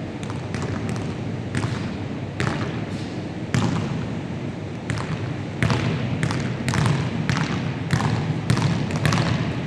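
A basketball bouncing on a wooden gym floor: sharp thumps at an uneven pace of one or two a second, each ringing on in the echo of a large hall.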